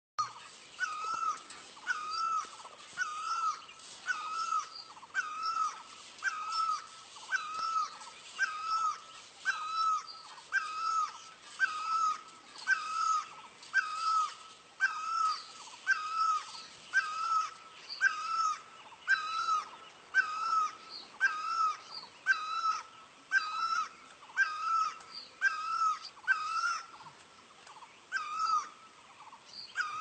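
Great barbet calling, one note about every second in a steady, unbroken series, with a brief pause near the end.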